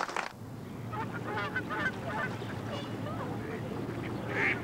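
Waterfowl calling in a park: many short honking calls, with one louder call near the end, over a low steady hum. A burst of crowd noise cuts off just after the start.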